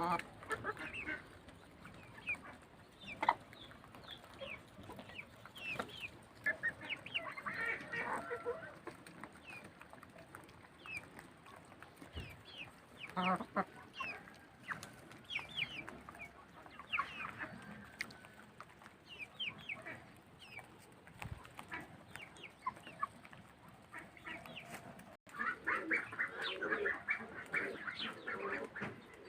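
Domestic chickens clucking in short, scattered calls, with a busier run of calling near the end.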